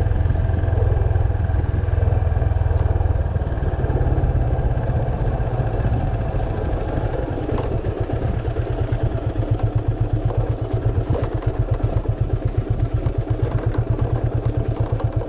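Yamaha FZ25's single-cylinder engine running while the bike is ridden. It is a smooth, steady drone at first, then about halfway through it drops to a slower, evenly pulsing beat as the bike rolls onto rocky ground, with a few light clicks and rattles from the rough surface.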